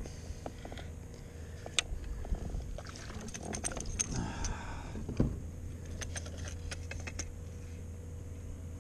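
Scattered light clicks and rattles of a spinning reel and fishing tackle as a hooked fish is reeled in beside a kayak, over a low steady hum.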